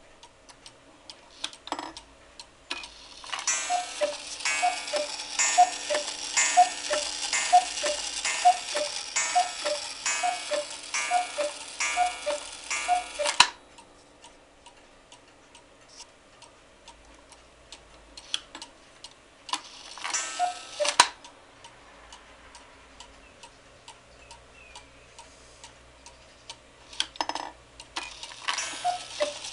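Vintage HECO Black Forest cuckoo clock calling: a run of about a dozen two-note cuckoo calls, each a higher note falling to a lower one, with the hiss of the bellows. Then comes a single short call about twenty seconds in, and another run begins near the end. The pendulum movement ticks steadily in between.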